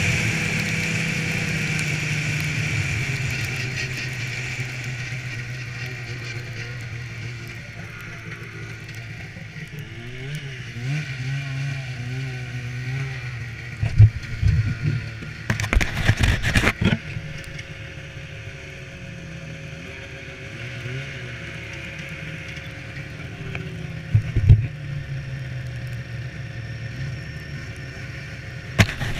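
Polaris snowmobile engine running under way, easing off over the first several seconds and then running lower with its pitch rising and falling now and then. Several knocks and clatter come around the middle and once more near the end.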